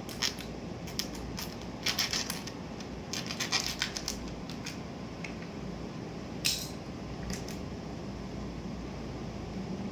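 A small plastic sachet of ginger-garlic paste being crinkled and cut open: scattered sharp crackles and snips in short clusters, the loudest about six and a half seconds in.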